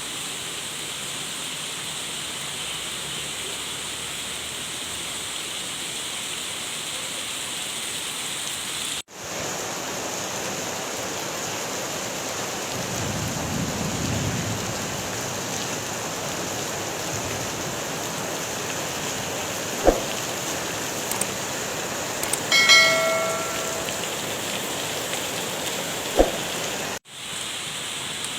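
Heavy rain pouring steadily, with a low rumble about halfway through, a couple of sharp knocks, and a brief ringing tone near the end. The rain cuts out for a moment twice.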